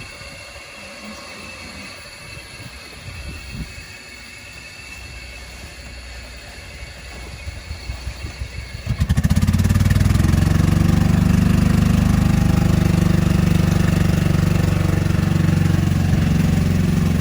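A vehicle engine, quiet at first with a few uneven knocks, catches about nine seconds in and then runs loudly and steadily close by.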